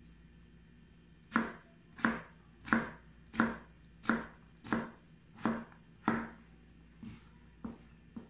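Chef's knife chopping peeled chayote into small dice on a plastic cutting board: eight sharp, evenly spaced chops, about one and a half a second, starting a little over a second in, then a few lighter knocks near the end.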